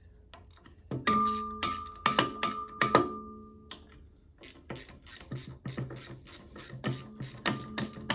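A hand tool clicking and knocking on the fastener and cast-iron inspection cover of a Listeroid diesel engine's crankcase. Several sharp metal knocks come about a second in, around two seconds and near three seconds, each ringing on in a clear tone. A run of lighter, quicker clicks follows.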